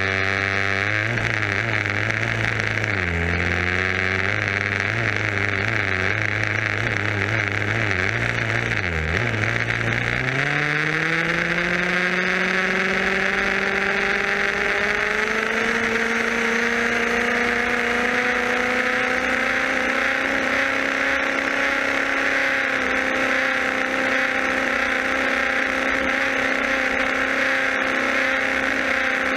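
Radio-controlled buggy's motor and drivetrain running, heard from the car itself. The pitch dips and recovers with its speed, then climbs steadily for several seconds as it accelerates and holds high, over a steady hiss.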